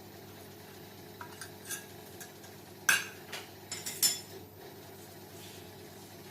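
Utensils clinking and tapping against a frying pan as it is greased with oil: a few light clinks, a sharper one about three seconds in, and a quick cluster a second later, over a steady low hum.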